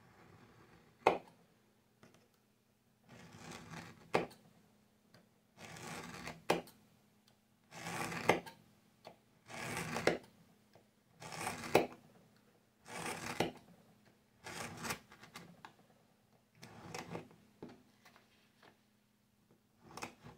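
A craft knife blade drawn repeatedly along a metal straightedge through thick leather, cutting it in about ten scraping strokes. Many strokes end in a sharp click.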